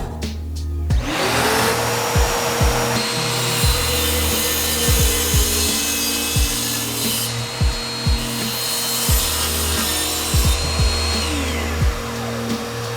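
An electric power tool spins up about a second in and runs steadily, working wood. Background music with a steady beat runs under it.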